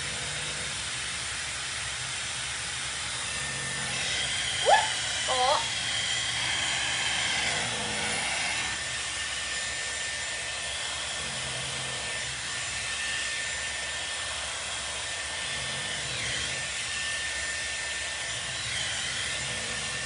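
Handheld hot-air hair styler running while curling hair, a constant airy hiss with a thin, steady motor whine. Two short rising sounds come about five seconds in.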